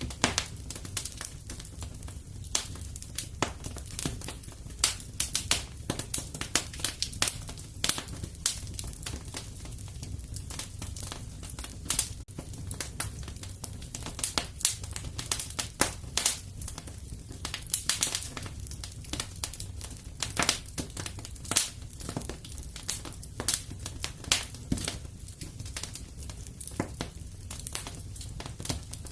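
Wood fire crackling in a fireplace: irregular sharp pops and snaps from the burning logs over a steady low rumble of the flames.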